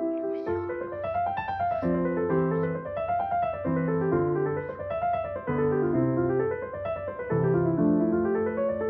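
Background piano music: rolling arpeggios that rise and fall over and over above held bass notes.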